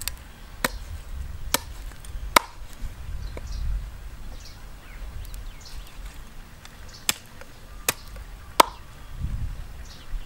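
Meat cleaver chopping black chicken on a wooden cutting board: sharp, irregular chops, four in the first couple of seconds, then a pause, then three more near the end.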